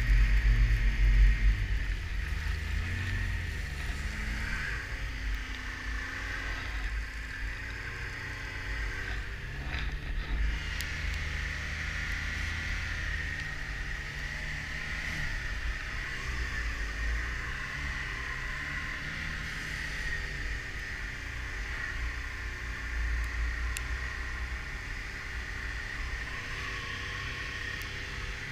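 Snowmobile engine running under way, its pitch rising and falling with the throttle, with a low rumble that is loudest in the first couple of seconds.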